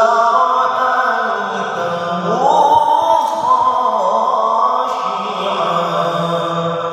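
A voice reciting the Quran in melodic tilawah style, one long ornamented phrase that climbs in pitch a little over two seconds in, is held high, and breaks off at the end.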